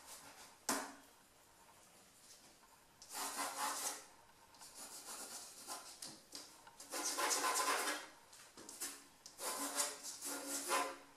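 Pencil scratching across drawing paper on an easel board in a series of sketching strokes, each burst lasting about a second, with one short sharp tap under a second in.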